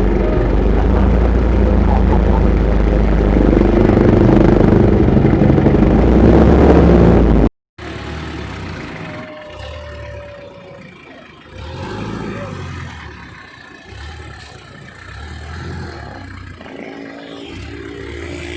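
Small Alkon-type petrol engine running loud and steady; it cuts off suddenly about seven and a half seconds in, and quieter, uneven low rumbling and clatter follow.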